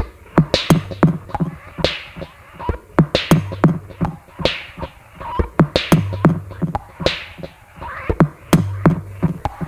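Experimental electronic music made on a no-input mixing desk: a loose beat of sharp clicks and low thuds, with recurring swooshing sweeps.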